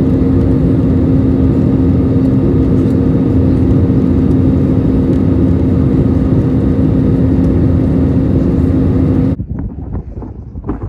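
Passenger aircraft cabin noise: a loud, steady roar with a constant low hum, heard from inside the cabin in flight. It cuts off abruptly near the end, giving way to quieter outdoor sound.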